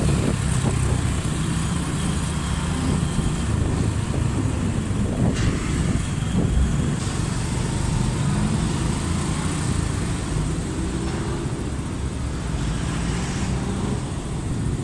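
Honda Splendor NXG 100 cc single-cylinder four-stroke motorcycle engine running steadily as the bike rolls along, heard with wind and road noise on the handlebar-mounted camera's microphone. A short click about five seconds in.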